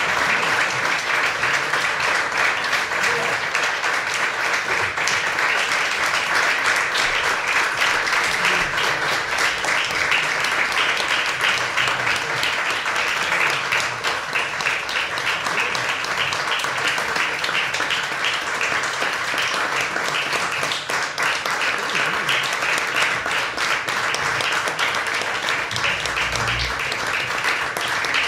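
A small audience applauding, steady clapping with a brief low thump near the end.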